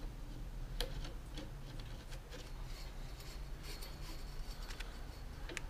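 Faint, irregular light clicks and ticks of a brake cable housing and its steel inner wire being handled and threaded by hand, over a low steady hum.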